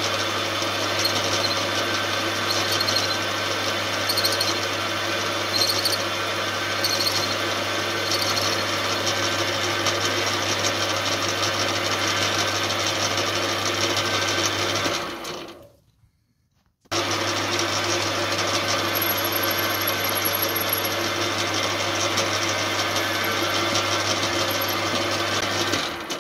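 Metal lathe running with its chuck spinning, turning down the head of a stainless steel cap head bolt: a steady machine hum. It dies away just past halfway and comes back about a second later.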